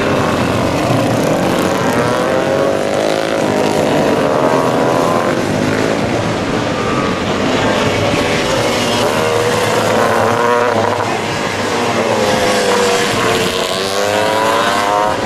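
Several classic racing motorcycles at race pace passing close by, their engines revving, with overlapping pitches that keep rising and falling as the bikes accelerate, change gear and sweep past.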